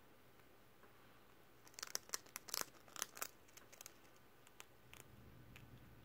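Pet rat biting into a ridged potato chip: a quick flurry of sharp crunches begins a little under two seconds in and lasts about two seconds, then two more single crunches come near the end.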